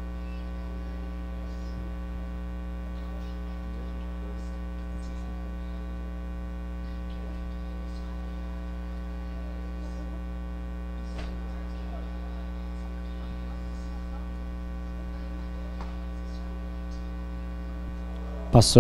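Steady electrical mains hum, a buzzing drone with many evenly spaced overtones, with a few faint ticks scattered through it.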